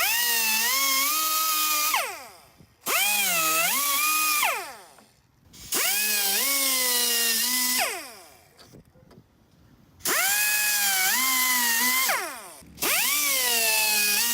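Power tool cutting into a van's bumper in five bursts of about two seconds each. Its motor pitch dips under load, and it winds down after each release of the trigger.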